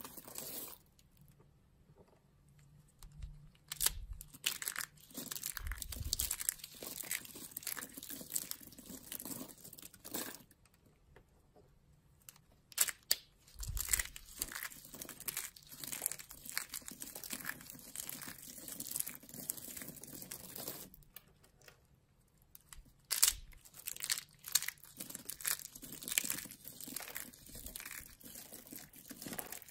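Dry soap shavings crushed and squeezed in the hands: a dense run of crisp crackling and crunching, in spells with a few short quiet pauses.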